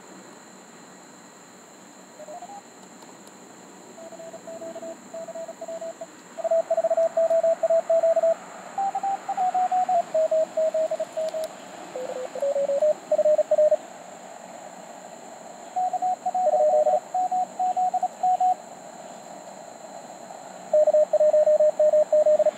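Morse code (CW) tones from a Mountain Topper MTR4B QRP transceiver over a hiss of band noise: strings of dits and dahs at several different pitches come and go. Near the end there is a loud, fast run of keying at one pitch.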